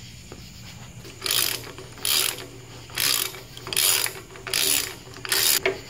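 Socket ratchet clicking through about six strokes, each stroke a short burst a little under a second apart, running the pinion nut down onto the yoke.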